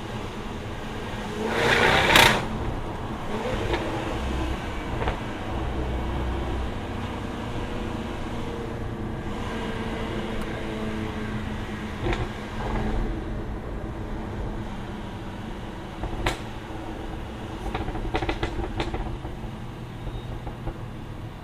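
2016 Jaguar F-Type V8 R's supercharged 5.0-litre V8 running steadily while driving, with a loud burst of noise about two seconds in. Several sharp exhaust pops and crackles come in the second half, a few of them close together near the end.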